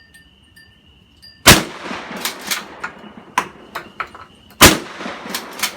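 Two shotgun shots about three seconds apart, each followed by a short ringing echo, with several fainter sharp cracks between and after them. A steady insect trill runs faintly in the background.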